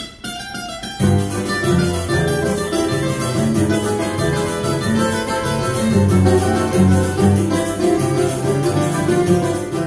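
Choro ensemble of cavaquinhos, bandolim and acoustic guitars, with pandeiro, playing a lively instrumental choro. The music comes in at full strength about a second in.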